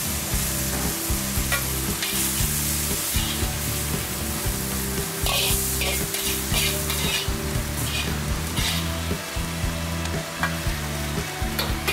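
Clay pot of freshly stir-fried lettuce sizzling steadily, with a few louder spits, over background music.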